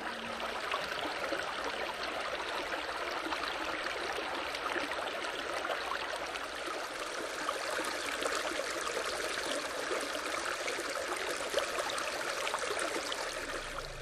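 Shallow mountain stream running over rocks and stones, a steady babbling rush of water.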